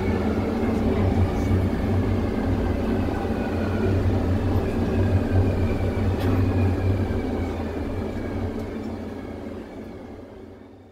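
Taipei Metro Circular Line train running on its track: a steady low hum and rumble, with thin electric motor whine tones that slowly fall in pitch. The sound fades out near the end.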